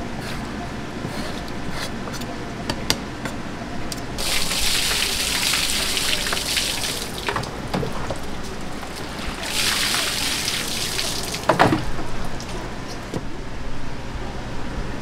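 Water running and spraying over sliced gizzard shad in a plastic basket as the fillets are rinsed, in two spells of about three and two seconds, with scattered clicks and a knock at the end of the second spell.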